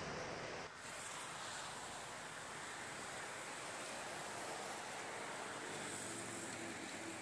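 Steady outdoor background noise: an even rushing hiss with no distinct events, like wind on the microphone. It dips briefly about two-thirds of a second in.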